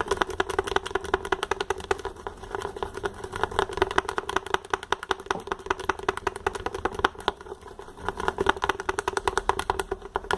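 Glue mixture for slime being stirred fast in a small plastic pot, the utensil clicking and scraping against the pot many times a second over a steady hum.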